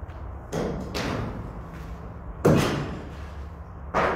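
A series of loud, sudden bangs, like slams or heavy knocks, each trailing off in a short echo. The loudest comes about two and a half seconds in, and two more follow close together near the end.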